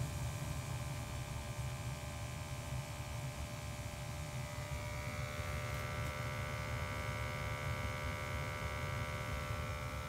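Steady low hum of a running gas-fired hydronic boiler and its equipment, with a set of higher steady tones growing stronger about five seconds in.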